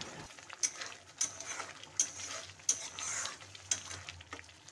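Metal spoon stirring and scraping thick masala around a metal kadhai, with about six sharp scrapes over a faint frying sizzle, as the masala is fried down in butter.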